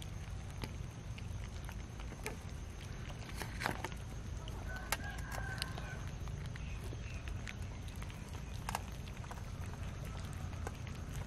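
A group of cats eating cooked rice from a metal tray, with many small clicks of chewing and of mouths against the tray over a steady low rumble. About five seconds in, a brief animal call lasting about a second.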